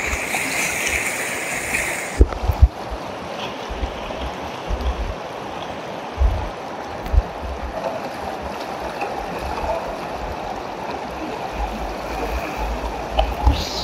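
A muddy river in flood rushing over rapids: a steady, loud roar of running water. A brighter hiss drops away about two seconds in, and there are occasional low thumps.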